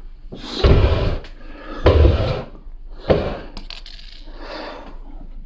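Small plastic Lego pieces clattering and clicking as they are handled and picked up, with three heavier knocks, about a second apart, in the first half.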